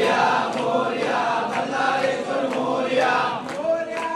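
A crowd singing a Hindu aarti together in unison, with sharp beats in time about twice a second.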